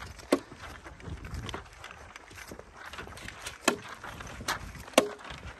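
A few sharp knocks or cracks at uneven intervals over a faint outdoor background, the loudest about a third of a second in, near the middle and near the end.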